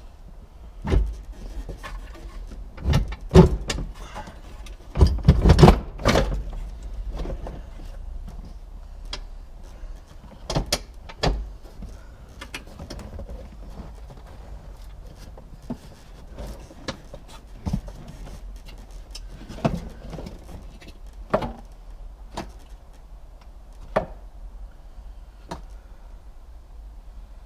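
Irregular knocks, clunks and rattles of car parts and tools being handled while working on a car's dashboard and firewall. The busiest clatter comes about five to six seconds in, with a second cluster around ten seconds and scattered single knocks after.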